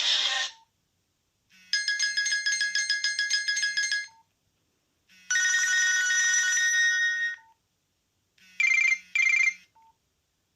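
Nokia C2-01 mobile phone playing short electronic alert tones one after another, with silent gaps between them. First comes a fast trilling ring of about two seconds, then a steady chiming tone of about two seconds, then two quick beeps.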